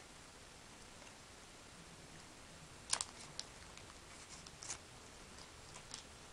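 A few faint, sharp clicks and light handling noises from the plastic packaging of a USB power adapter being handled during unboxing: about three seconds in, again around four and a half seconds, and once near six seconds.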